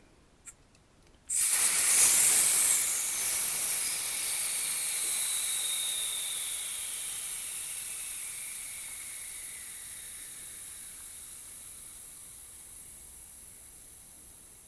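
Air hissing out of a bicycle tyre through its valve as it is let down, starting suddenly after a couple of faint clicks, loud at first and fading steadily as the pressure drops, with a faint whistle that slowly falls in pitch.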